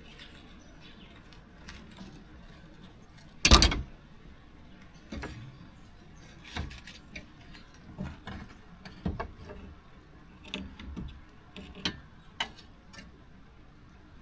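Scattered clicks and knocks of hand tools and parts being handled during work on a car, with one loud knock about three and a half seconds in.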